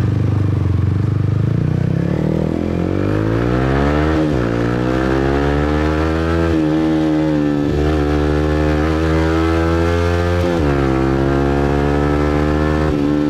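Motorbike engine revving hard under fast acceleration, its pitch climbing steadily. The pitch drops sharply about four seconds in and again near the eleventh second, then climbs back and holds high.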